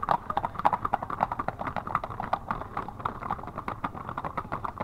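Hooves of a herd of horses running on a paved road: many overlapping hoof strikes on asphalt in a dense, uneven patter.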